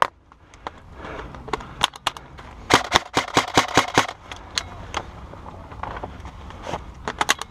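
Airsoft guns firing: scattered single shots, a rapid burst of about a dozen shots lasting just over a second, starting a little under three seconds in, then more single shots and a quick string of shots near the end.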